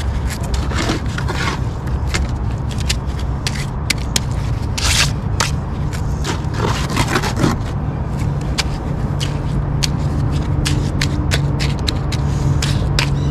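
Steel trowel scraping and clicking against wet rapid-set concrete and the curb as the patch is packed and shaped, in many short irregular strokes. A steady low rumble runs underneath, with a low hum joining about eight seconds in.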